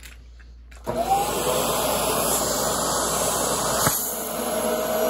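A vacuum cleaner switches on about a second in with a brief rising whine, then runs loud and steady. Its suction drives a LEGO vacuum engine that turns a Power Functions motor through 3:1 gearing. There is one sharp knock near the four-second mark.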